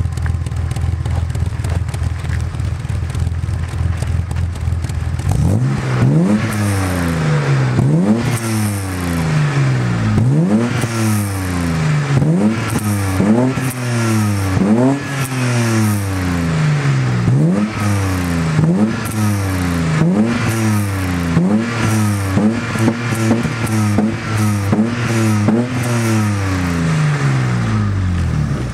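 BMW 535i E34's 3.5-litre straight-six through a Supersprint exhaust, idling steadily, then blipped about five seconds in and revved over and over, each rev rising sharply and falling back, about one every second and a half. It settles back to idle near the end.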